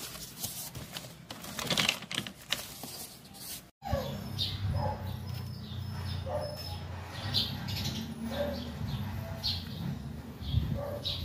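Rustling and clicking as a wrapped parcel is handled, then after a sudden cut a steady low hum with short bird chirps recurring about once a second.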